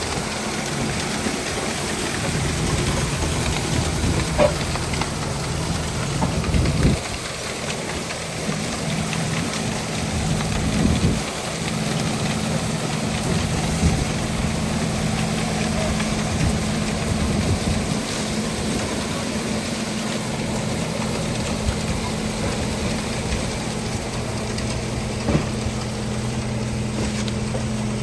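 Tractor engine running steadily, with a few brief knocks from the harvesting machinery.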